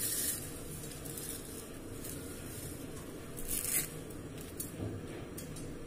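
Crisp fried besan garlic sev (lasun shev) being broken and crumbled by hand, giving faint dry crackles with a few louder snaps, the clearest about three and a half seconds in. The crunch is the sign that the sev has fried crisp.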